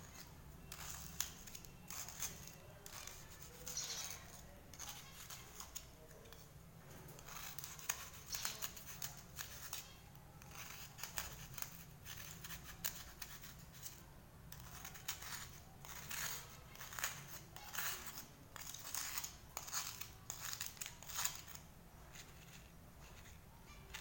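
A knife blade scraping and shaving a cuttlefish bone into chalky flakes over a plastic bowl: irregular dry scratching strokes, some in quick runs.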